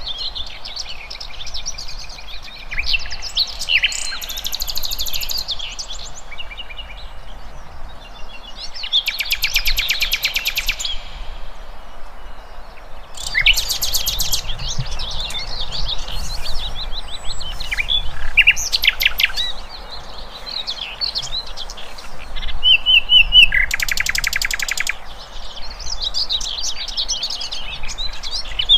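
Several wild birds singing and chirping at once, overlapping whistles and chirps with a few loud, fast trills lasting a second or two, over a steady low background noise.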